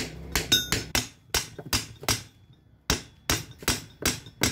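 Claw hammer tapping the aluminium case of a Toyota Innova alternator to split its front and rear halves apart: about ten light, sharp metallic strikes, two to three a second, with a short pause a little past halfway and a brief ring after one early strike.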